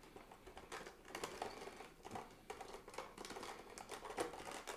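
Cardboard Funko Pop! box being worked out of its clear plastic protective case by hand: faint, irregular crinkles, rubs and small clicks of plastic against cardboard, growing busier toward the end.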